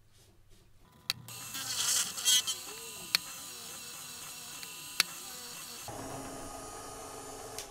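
Small bench drill press starting about a second in and running with a steady buzzing whine as its bit drills holes in a brass bar, with a couple of sharp clicks; the sound changes near the end and stops just before it ends.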